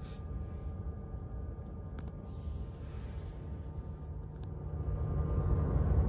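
Tesla Model 3's front cooling fan running during DC Supercharging at about 46 kW, heard from inside the cabin as a steady low hum with a faint whine, growing louder near the end.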